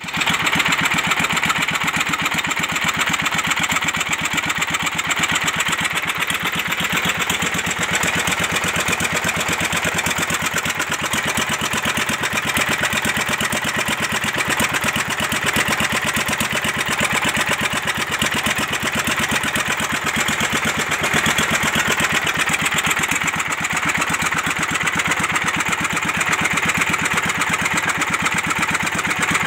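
Jiang Fa 24 HP single-cylinder diesel engine running steadily with an even, rapid chug.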